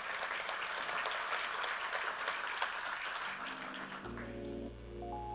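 Audience applauding, dense clapping that dies away about four seconds in as background music with sustained notes and a steady bass comes in.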